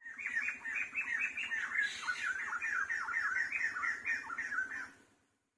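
An animal calling in a rapid series of short squawking calls, about four a second, each dropping in pitch. The calls start abruptly and fade out after about five seconds.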